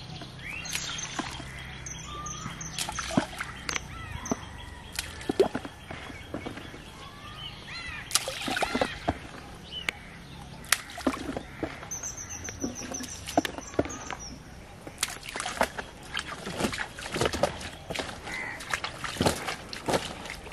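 Small splashes and sloshing of water at the edge of a muddy pond as a plastic basin is handled, among many short knocks and rustles. Birds call, including runs of repeated high notes near the start and about halfway through.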